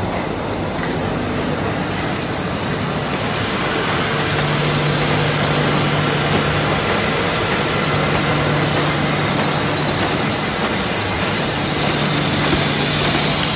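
ZFM-1080B automatic film laminating machine running at about 68 metres a minute, its rollers turning and printed sheets feeding through, a steady mechanical whir. A steady low hum joins in about four seconds in.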